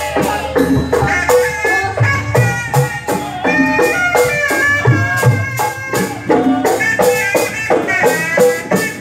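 Gondang: long wooden pestles (alu) knocking in a steady interlocking rhythm, about three strikes a second, on a rice-pounding trough (lesung), with a pitched melody over the knocks.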